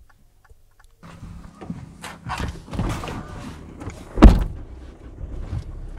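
A car's engine idling, with rustles and clicks of someone at the car, then a car door slams shut about four seconds in.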